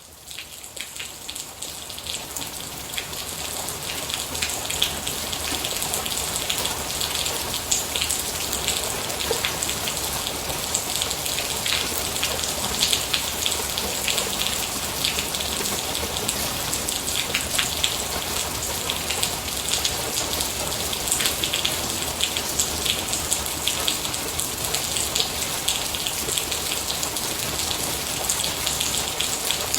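Steady rain with many individual drops pattering on a surface. It fades in from silence over the first few seconds, then holds even.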